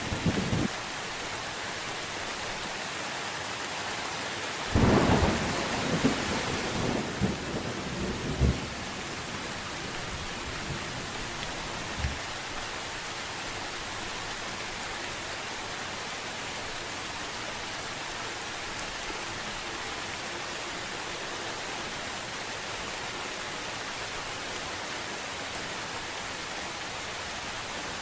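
Steady rain falling, with a clap of thunder about five seconds in that rumbles on for a few seconds before the rain continues alone.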